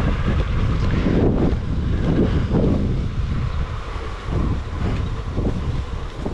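Wind buffeting the microphone while cycling: a loud low rumble that surges and eases in gusts.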